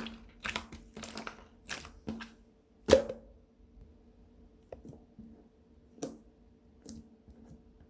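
Slime being pressed and poked by hand: a quick run of wet squishes and pops in the first three seconds, the loudest about three seconds in, then a few sparse soft clicks.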